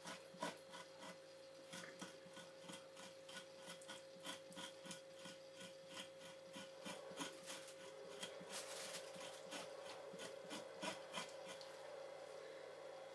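Dull knife scraping membrane and fat off the flesh side of a fresh fox hide, in a long run of short strokes, two or three a second.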